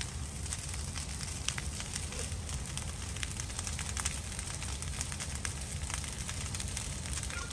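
A large burn pile ablaze: a steady low rush of flames with frequent sharp crackles and pops.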